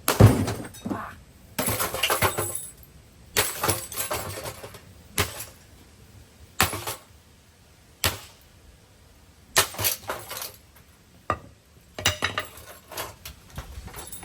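A ceiling fan being smashed apart: about ten crashing blows, roughly every second and a half, each followed by clattering and clinking of broken parts. The first blow is the loudest.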